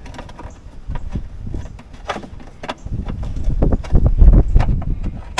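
Irregular clicks and knocks of a wiring harness plug and its cable being worked by hand through a hole in the Jeep's body, with heavier low thumps and rumbling for a second or so near the end.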